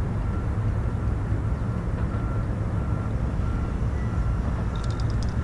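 Wind rumbling on an action camera's microphone, steady throughout, with a faint high tone repeating about twice a second above it.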